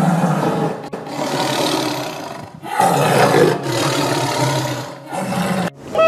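Lion roaring: two long, rough roars and a short third one that cuts off near the end.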